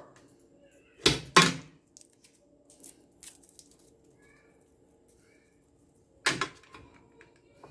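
Handling noises from fitting a screw-on F connector onto the end of a short piece of coax cable: two sharp knocks about a second in, a few light ticks, and another knock near the end, over a faint low hum.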